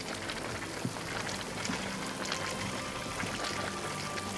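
Hot brine in a Dalol hot-spring pool bubbling and fizzing: many small pops and crackles over a steady watery hiss.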